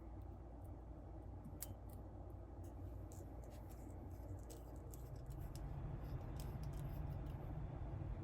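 Faint small clicks and light scrapes of hand tools and small watch parts being handled, over a low steady hum that grows louder about five and a half seconds in.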